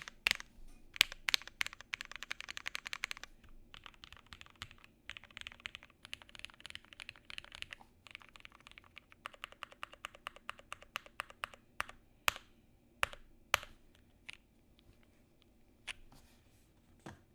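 Custom mechanical keyboard with a polycarbonate plate and foam-filled case, fitted with lubed vintage black linear switches, being typed on. Quick runs of rapid keystrokes break off in short pauses, and near the end a handful of single key presses fall a second or so apart.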